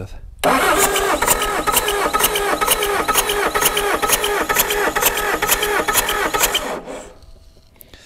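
Starter cranking a Doosan D24 four-cylinder diesel with its glow plugs out and the key off. It spins over quickly without firing, with a steady beat of about four compression strokes a second, for a compression test. It starts abruptly about half a second in and winds down and stops about 7 seconds in; the cylinder builds about 400 PSI, healthy compression.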